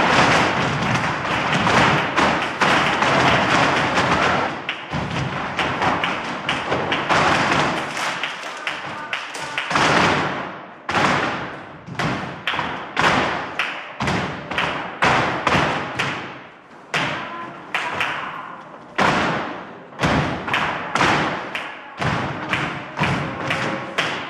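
Flamenco footwork (zapateado) from a group of dancers in heeled flamenco shoes striking a wooden floor: a dense, rapid flurry of heel and toe strikes for the first half, then separate accented stamps about one to two a second, roughly together.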